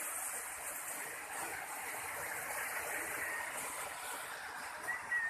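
Steady rush of flowing stream water, an even hiss with no break. Near the end a short, thin, wavering high note sounds over it.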